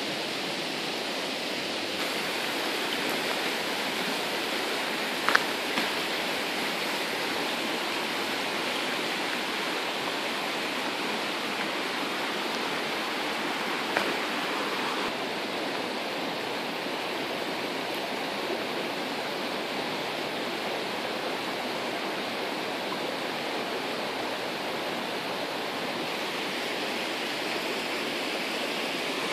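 Steady rush of a fast-flowing river, with two brief clicks, one about five seconds in and one near the middle.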